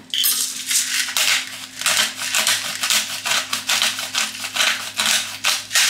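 Hand pepper mill being twisted to grind peppercorns, a rapid run of short crunching grinds at about three a second.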